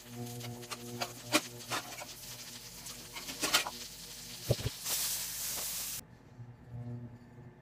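Butter sizzling and crackling as it melts in a hot frying pan, over a steady low hum. The sizzle swells into a loud hiss about five seconds in and cuts off suddenly a second later.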